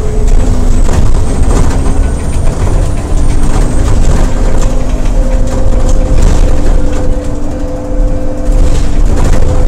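Interior sound of an Alexander Dennis Enviro400 double-decker bus with its engine running: a steady low rumble with a couple of held tones.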